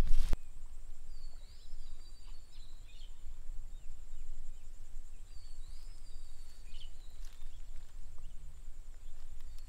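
A small bird sings the same short whistled phrase twice, a few seconds apart, over a steady high-pitched buzz and a low rumble. A brief loud noise comes right at the start.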